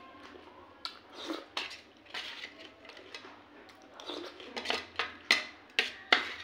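Metal spoon scraping and clinking against a steel plate while scooping up pea curry and samosa, with several sharp clinks, the loudest in the last second and a half. Softer eating sounds fill the gaps between.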